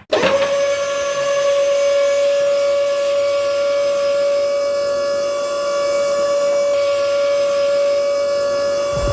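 A steady, siren-like pitched tone with many overtones, switching on abruptly and held at one pitch, with a low rumble joining near the end.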